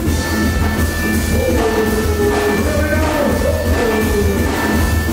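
Live band music played loud through a stage sound system: a heavy, steady bass beat with a singer's voice on the microphone over it.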